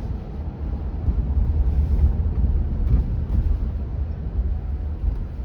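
Road and tyre noise heard inside the cabin of a Cruise self-driving Chevrolet Bolt electric car rolling slowly over a wet road: a steady low rumble that swells louder for a couple of seconds in the middle.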